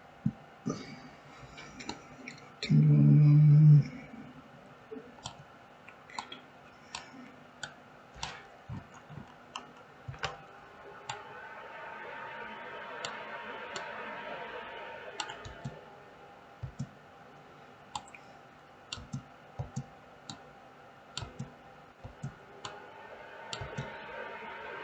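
Computer mouse clicking repeatedly at an uneven pace. Near the start comes one loud, low pitched tone lasting about a second.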